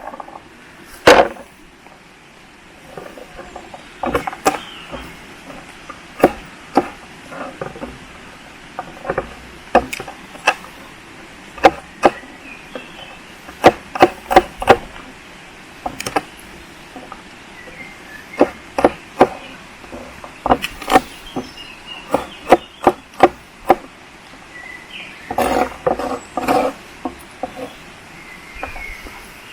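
Repeated sharp chopping blows on wood at an uneven pace, sometimes in quick runs of three or four strikes.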